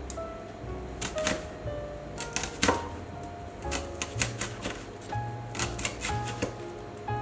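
Chef's knife dicing an onion on a wooden cutting board: sharp knocks of the blade meeting the board, coming unevenly, often in quick pairs or threes. Soft jazz music plays underneath.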